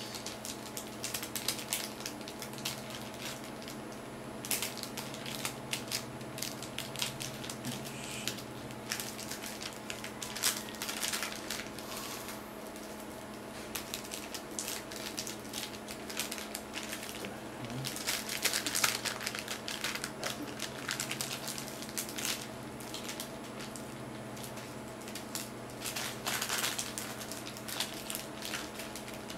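Clear plastic packaging bags crinkling and crackling as they are handled and opened, in irregular clusters that get busier several times. A steady low hum runs underneath.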